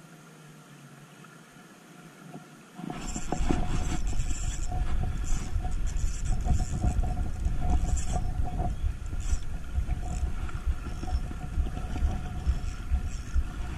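Wind buffeting the camera's microphone, starting suddenly about three seconds in: a loud, irregular low rumble with gusty crackling.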